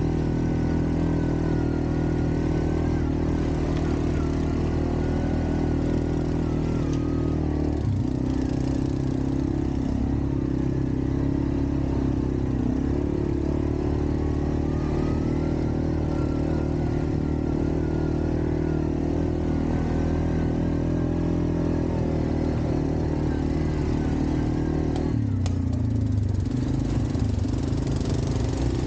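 ATV engine running steadily while riding, with a wavering whine above the engine note. The engine note shifts about 8 seconds in and changes again about 25 seconds in.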